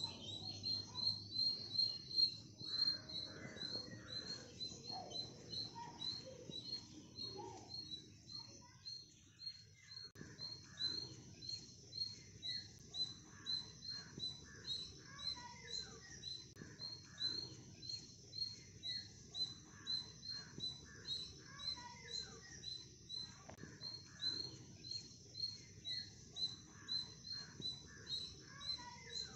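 Outdoor ambience of birds calling, with a short high chirp repeating about twice a second throughout and other scattered calls. A faint steady high insect buzz runs underneath.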